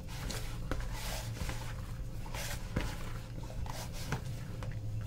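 A hand working shaggy bread dough in a plastic bowl, with soft, irregular squishing and scraping strokes as the crumbly flour mixture takes up the last of the water.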